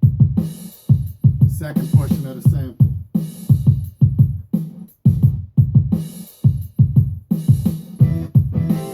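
Hip-hop beat from a Maschine Studio: a steady stream of short, punchy drum hits under chopped sample slices, with a brief wavering, pitch-bent snippet about two seconds in.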